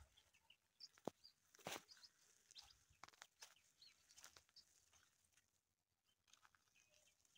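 Near silence, broken by a few faint clicks and scattered faint high chirps.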